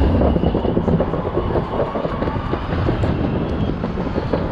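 Light-rail train running past close by: a loud, steady rumble with no break.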